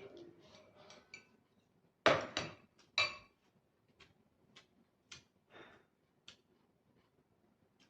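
A run of sharp knocks and clinks, as of things being handled: three loud ones about two to three seconds in, then several fainter ones about half a second apart.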